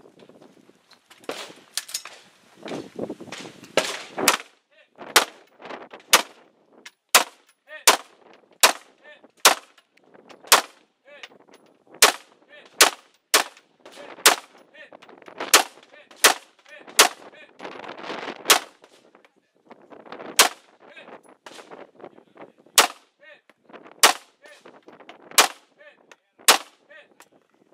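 Gunshots fired one after another at about one a second, each sharp crack cutting off short, as a shooter works through a string of targets.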